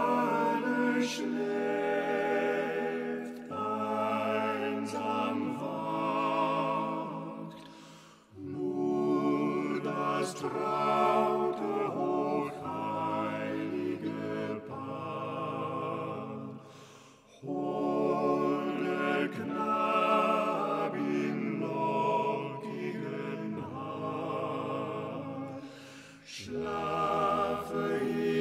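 Slow, gentle background music with a sustained, wavering melody, in long phrases of several seconds, each fading before the next begins.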